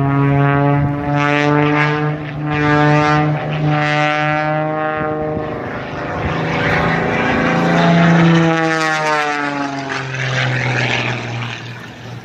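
Propeller aerobatic airplane flying a display. Its engine and propeller note rises and falls in pitch as it manoeuvres, with a clear falling sweep about two-thirds of the way in as it passes.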